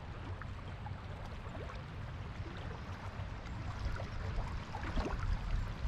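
Steady rush of flowing river water, an even low noise.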